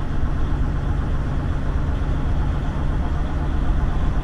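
Semi-truck's diesel engine running steadily while driving, a low even hum with road noise, heard from inside the cab.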